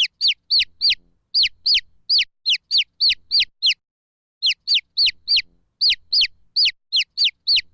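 Chick peeping: a run of loud, high-pitched cheeps, each one sliding downward, about three a second, with a brief pause about four seconds in.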